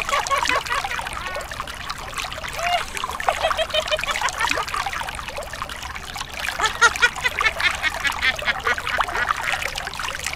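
Thin stream of water pouring onto a plastic toy and splashing into a shallow basin of water, with bubbly, gurgling trickling that grows busier in the second half.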